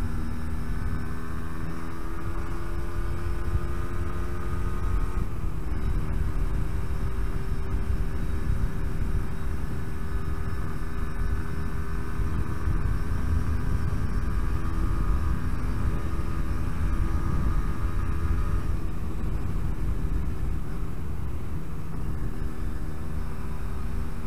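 Yamaha RD125LC YPVS two-stroke engine pulling along at a steady speed over a heavy low wind and road rumble. The note breaks briefly about five seconds in, then carries on steady. The engine is still being run in, at moderately raised revs.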